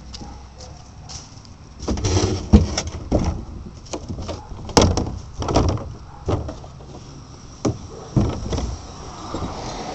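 Irregular close-up thumps, knocks and rustling of handling around a green plastic wheeled trash cart, starting about two seconds in and thinning out near the end.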